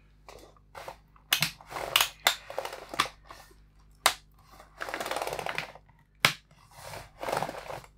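Acer Aspire 5733 laptop keyboard being pressed down into its plastic case: a string of sharp plastic clicks and snaps, with a few longer scraping rubs of plastic against plastic.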